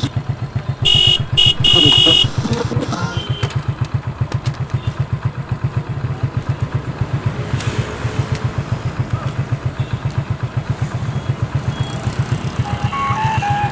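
A small engine idling steadily with a low, even putter. About a second in, two loud short high-pitched blasts sound one after the other.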